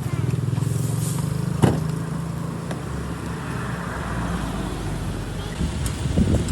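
A vehicle engine running steadily with a low hum, loudest in the first couple of seconds and then easing off, with a sharp click about a second and a half in.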